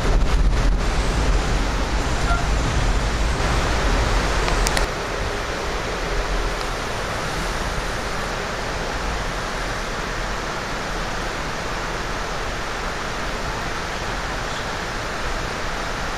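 Ride noise of a moving passenger train heard from inside the car: wheels on the rails give a steady rush. A heavier low rumble with a few clicks runs for about five seconds, then drops after a sharp click to a steadier, quieter hiss.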